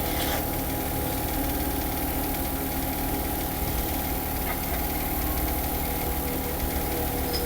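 Steady motor-like hum running without change, with a few fixed tones in it.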